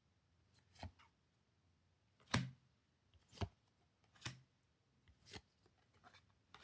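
Pokémon trading cards being handled one at a time during a pack opening, each making a short, sharp tap or snap, about once a second.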